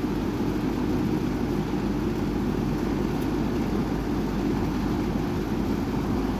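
Dayton model 4C418 20-inch box fan with metal blades, a rebranded Lakewood P24, running on its high setting: a steady, loud rush of air over a low motor hum.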